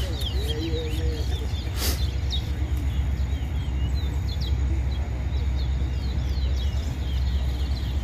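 Small caged competition songbirds singing short, quick chirping phrases in loose clusters over a steady low rumble, with a brief hiss about two seconds in.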